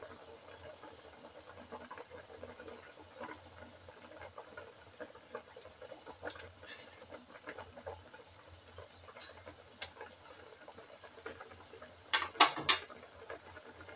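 Fish broth boiling in a wok, a soft crackling patter of bubbles. Near the end come three sharp knocks close together.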